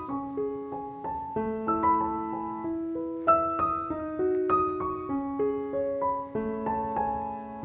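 Background music: a gentle piano melody, single notes struck at an unhurried pace over held lower notes.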